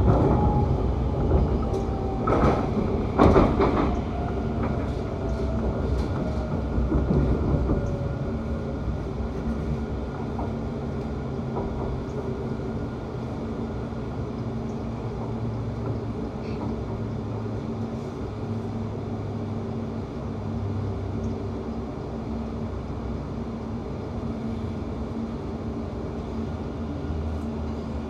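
Class 710 electric train running, heard from inside the carriage: a steady hum with a whine that falls slowly over the first several seconds. A few loud clacks from the wheels on the rails come about three seconds in, and the running then settles quieter.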